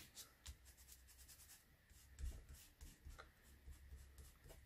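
Faint soft dabbing and rubbing of a foam sponge dauber applying ink to paper, in a few scattered short strokes.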